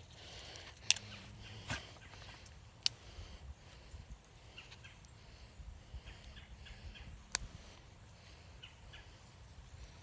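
A twig being handled and its small buds picked off: a few sharp clicks and snaps over a faint outdoor background, with faint short high chirps through the middle.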